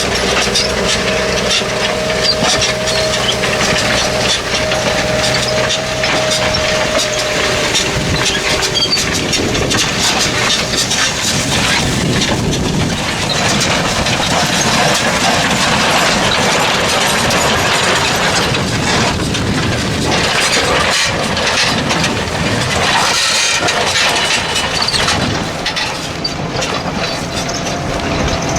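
New Holland tractor working under load as it pulls a plough through the field: a steady engine note with continuous mechanical and soil noise.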